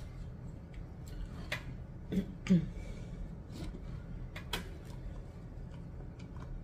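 Eating sounds: a plastic fork tapping and scraping in a paperboard tray of loaded fries, giving several sharp clicks spread through, with chewing and a couple of short mouth sounds a little after two seconds in.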